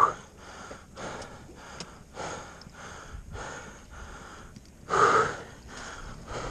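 A person's heavy breathing, panting close to the microphone about once a second, with loud gasps at the start and about five seconds in.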